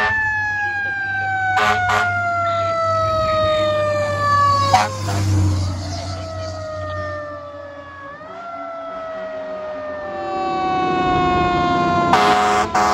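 Fire engine siren wailing, its pitch falling slowly over several seconds and briefly rising again about eight seconds in. Short rapid blasts sound about two seconds in and again near the end.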